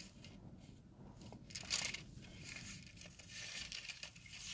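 Faint rustling and crinkling of thin Bible pages being leafed through, a few soft page turns.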